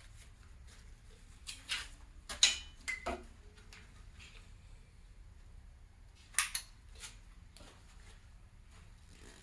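Small metal parts being handled and set down on a hard surface: sharp clinks and clatters, one ringing briefly, bunched about two seconds in and again just past six seconds, with a few lighter taps after.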